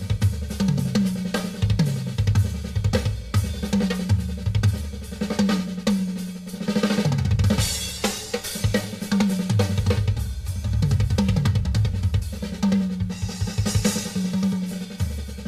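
Solo on a Yamaha drum kit with Zildjian cymbals, played live: fast fills moving around the tuned toms over the bass drum and snare. Cymbal crashes ring out about halfway through and again near the end.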